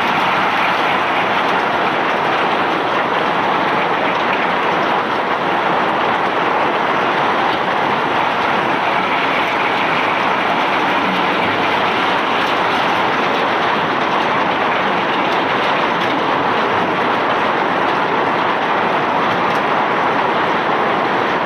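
Self-unloading barge's conveyor discharging bulk rock cargo, a steady, unbroken rushing rattle of material pouring off the belt.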